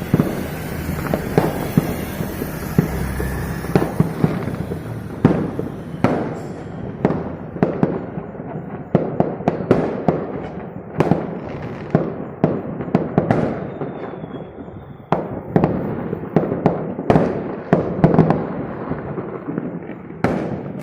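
Fireworks and firecrackers going off all over the city at once: a dense crackle of many distant bangs for the first few seconds, then louder separate reports at irregular intervals, each echoing.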